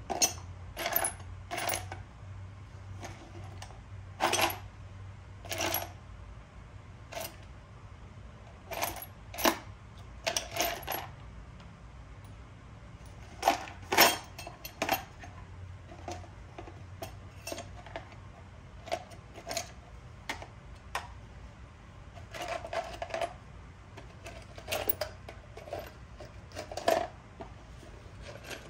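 Loose metal bolts and small hardware clinking and rattling as someone rummages through a parts bin for the tensioner bolts, in irregular sharp clinks spread throughout. A faint steady low hum runs underneath.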